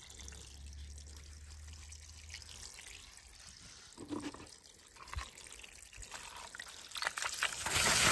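Quiet trickling water with a few light knocks, then near the end a loud steady hiss of water spraying onto a plastic toy car in the grass.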